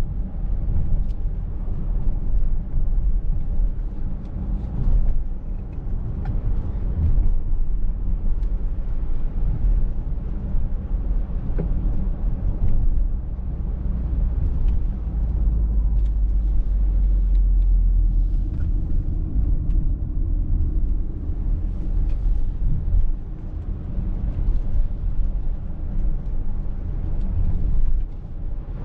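A 2023 Mercedes-Benz GLC Coupé 300de 4Matic plug-in hybrid on the move: a steady low rumble of road and drivetrain noise, with a few faint ticks.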